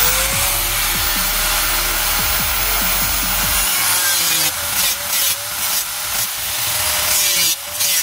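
Electric angle grinder with a cutting disc slicing through the sheet-steel side panel of a PC case, its motor running at a steady whine over a harsh grinding hiss. From about halfway the sound turns choppy as the disc bites in and out of the metal, and the whine dips briefly in pitch under load.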